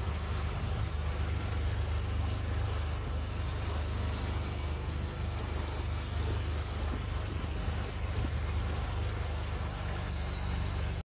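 A houseboat's engine running steadily as the boat cruises: a constant low drone with a light rush of water and air over it.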